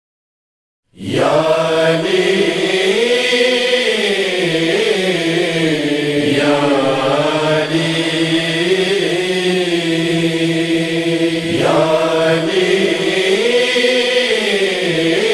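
Silence, then about a second in a manqabat's opening begins: a male voice chanting long held notes that slide up and down, over a steady low drone.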